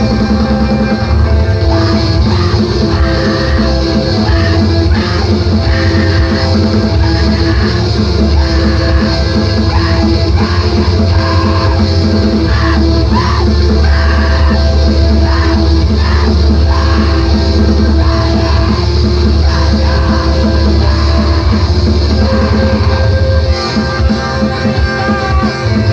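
Emoviolence/screamo band recording: loud distorted guitars, bass and drums, with screamed vocals over them. The music drops back briefly near the end.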